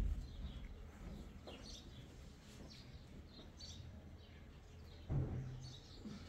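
Small birds chirping now and then in the background, with a dull thump about five seconds in as a pile of folded blankets is handled and lifted.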